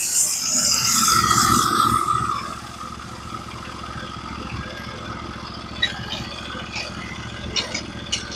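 Norwood HD36v2 sawmill's gas engine starting up, running high for about two seconds, then settling to a steady idle. A few light clicks and clanks near the end.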